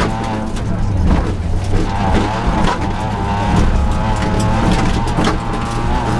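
Rally car engine heard from inside the cabin at stage pace, its revs dipping and climbing again about two seconds in, with loose gravel clattering against the car's underside.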